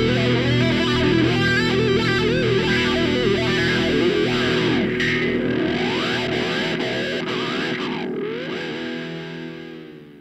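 Rock background music led by distorted electric guitar, fading out over the last few seconds.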